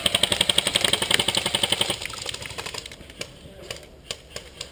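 Airsoft gun firing a rapid, even full-auto burst for about two seconds, followed by a few scattered single shots.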